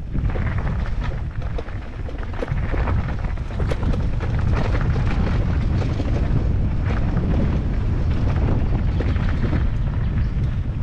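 Wind rumbling on the microphone of a riding mountain bike, with a steady run of short clicks and rattles from the bike and its tyres over rough ground; the rumble grows a little louder a few seconds in.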